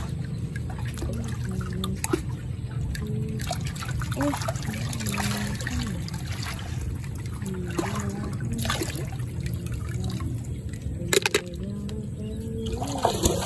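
Shallow muddy paddy water splashing and trickling as hands feel through it for clams, with a few louder splashes near the end, over a steady low rumble.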